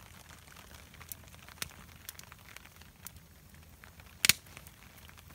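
Wood campfire crackling, with scattered small snaps and one louder pop about four seconds in.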